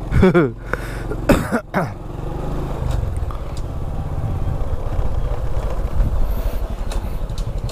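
Honda scooter's engine running as it is ridden slowly along a lane, a steady low drone that gets a little louder about three seconds in. Two short vocal sounds, like a cough or grunt, come in the first two seconds.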